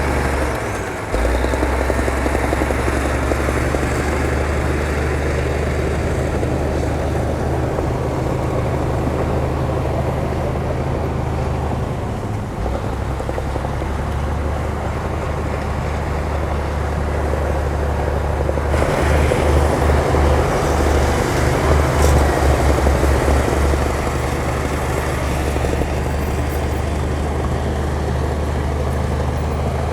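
Heavy earthmoving machine's diesel engine running steadily with a low rumble, getting louder for a few seconds about two-thirds of the way through.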